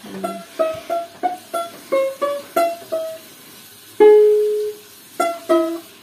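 Balalaika being practised: a run of single plucked notes, about three a second, moving up and down in pitch. About four seconds in comes one longer ringing note, then two more plucks near the end.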